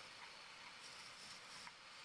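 Faint, steady hiss of a hand-held turning tool cutting a wooden bed leg spinning on a lathe.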